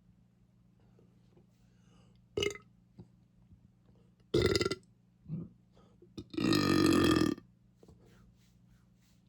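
A person burping four times: a short burp about two seconds in, a louder one a little past four seconds, a small one soon after, and then the longest and loudest belch, drawn out for about a second.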